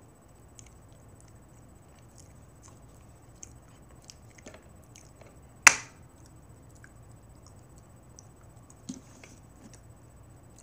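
Faint scattered small clicks and handling noises over a low room hum, with one sharp, loud click a little past halfway and a smaller one near the end.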